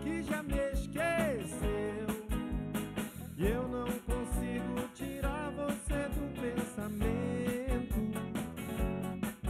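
Live band playing a song: drum kit keeping a steady beat under electric bass and electric guitars, with a melody line of gliding, wavering notes.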